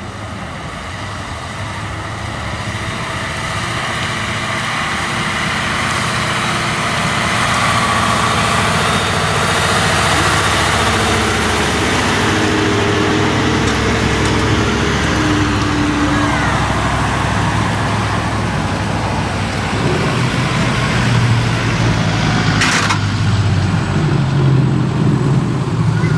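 Diesel engines of large decorated trucks (dekotora) running as they drive slowly past in convoy, growing louder over the first several seconds and then holding steady. A short sharp hiss comes near the end.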